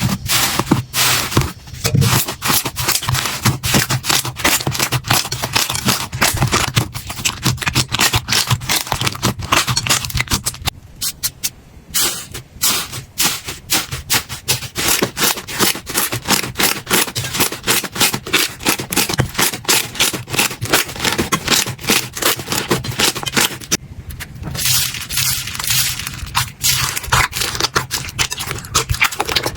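Slime being handled: dense, rapid crackling and clicking pops, with brief lulls about eleven seconds in and again near twenty-four seconds.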